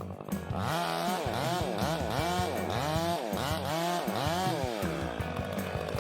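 Chainsaw engine revved up and down over and over, about twice a second, then held in a steadier rasp near the end.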